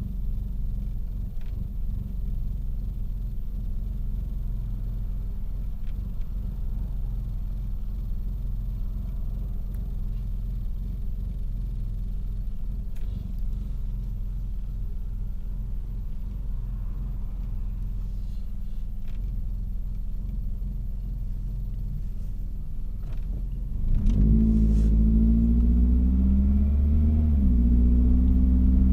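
2001 Toyota Celica GT's 1ZZ-FE four-cylinder engine idling roughly with an uneven, stumbling rumble: a misfire at idle. About four-fifths of the way through, the engine gets louder and its hum rises and shifts in pitch.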